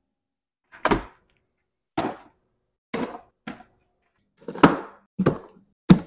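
Groceries such as cartons and jars being set down one at a time into a portable 12V compressor fridge's plastic compartment: about seven separate thunks and knocks, each short, with silence between.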